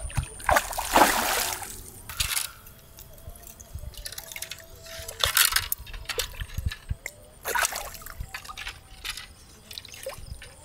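Hooked carp thrashing at the surface and in the shallows as it is played in and landed by hand, in several separate bursts of splashing and sloshing water.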